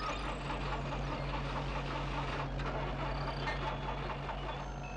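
Bulldozer engine rumbling steadily with a low drone, as heard on a 1970s film soundtrack.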